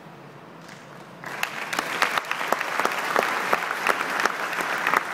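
Audience applauding: many hands clapping break out about a second in and keep going.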